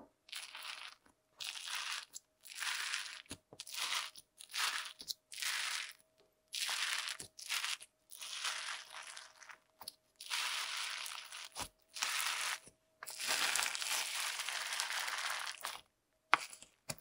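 Hand pressing and squeezing crunchy slime packed with foam cubes and tiny foam beads: a run of dry crunching and crackling squeezes, each about a second or two long, with short pauses between.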